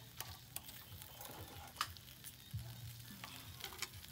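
Faint cooking sounds: irregular clicks and taps of utensils over a light frying hiss.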